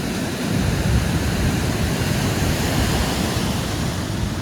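Storm waves surging and breaking against a seawall, a steady rush of churning water with strong wind buffeting the microphone.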